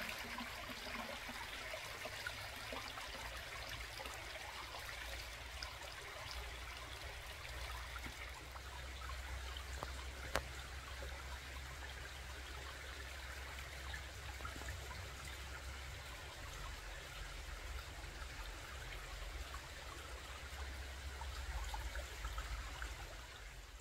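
Small stream of water trickling steadily down over rocks, with a low rumble underneath and a single sharp click about ten seconds in.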